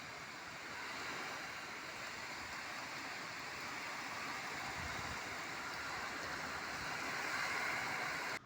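Strong wind with rain: a steady rushing hiss that swells about seven seconds in, then cuts off abruptly near the end.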